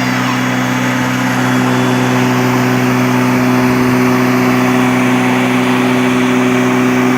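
Lawnmower motor running steadily at one speed.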